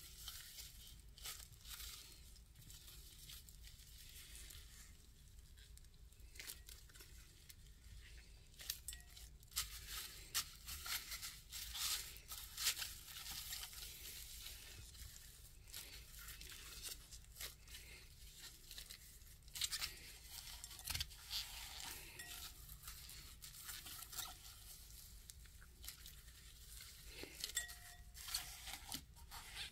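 Blue slime loaded with small white foam beads being squeezed and kneaded by hand: a steady crackling with frequent sharp little pops and clicks as the beads are pressed.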